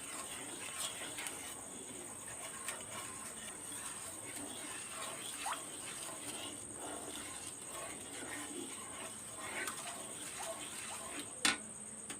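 Faint, scattered scrapes and light clicks of a spoon stirring sugar and water in a pan while the sugar dissolves, with one sharper click near the end.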